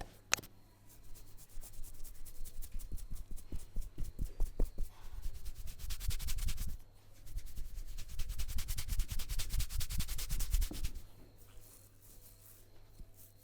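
Hands rubbing rapidly over hair and scalp in a head massage, a fast rhythmic rasping that breaks off briefly about seven seconds in and stops about eleven seconds in. A single sharp click comes just before the rubbing begins.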